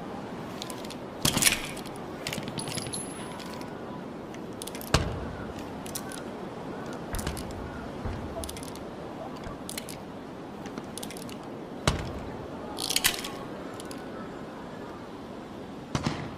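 MAS Mle. 1892 revolver being handled, giving scattered metallic clicks and clacks. There are sharp single snaps about five and twelve seconds in and short rattles around a second and a half and thirteen seconds, over a steady background hiss.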